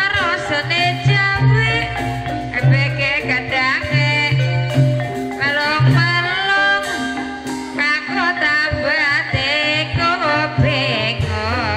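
Javanese gamelan music for ebeg dance: mallet-struck metallophones and xylophone playing the melody over a steady drum beat, with a singer's voice wavering in vibrato above it.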